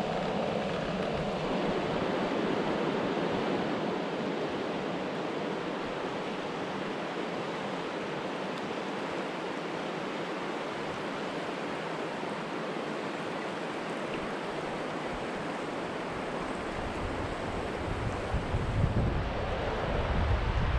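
Steady rush of flowing river water, an even roar with no rhythm. In the last few seconds wind gusts buffet the microphone.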